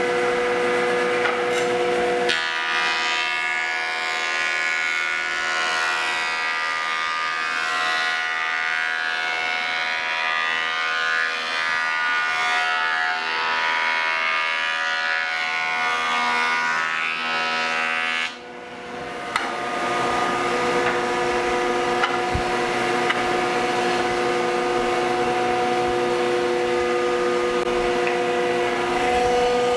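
Woodworking jointer running with a steady whine; from about two seconds in, a board is fed across the spinning cutterhead, adding a louder, rougher cutting sound that stops suddenly at about eighteen seconds, after which the machine runs on its own again.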